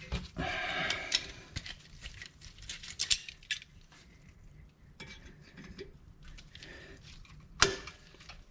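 Metal hand tools and fittings clinking and scraping while a brake line fitting is threaded onto a caliper and tightened, with a sharp clink near the end.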